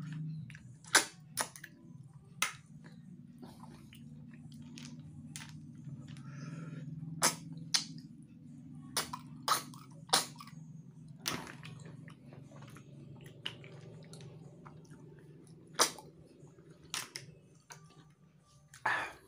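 Mouth sucking rice-field snails (tutut) in chilli sauce out of their shells: about a dozen short, sharp slurps and smacks at irregular intervals, over a steady low hum.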